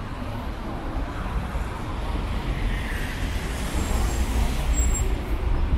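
City bus engine rumbling with road traffic noise, growing gradually louder, with a brief high squeak about five seconds in.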